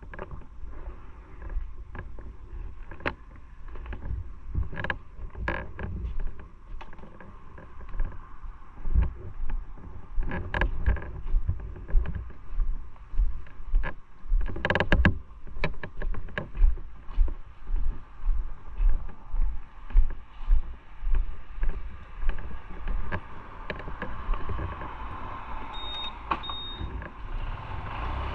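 Motorcycle ride recorded on board over an uneven surface: a low rumble with many irregular knocks and rattles, which pulse about every half second through the middle. A steadier running noise grows louder near the end.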